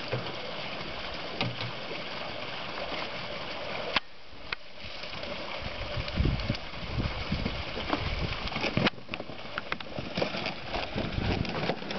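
Water running steadily through the hose and a wide pipe, flushing stocked rainbow trout from the tank down into the lake. About halfway through it grows louder, with uneven low buffeting on the microphone.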